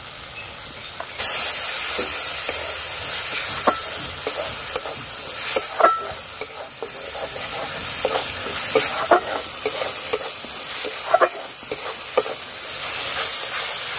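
Onion, ginger-garlic paste and freshly added ground cumin and chilli sizzling in hot oil in a kadai as a flat metal spatula stirs and scrapes them, frying the masala down. The sizzle gets louder about a second in, with scattered scrapes and clinks of the spatula against the pan.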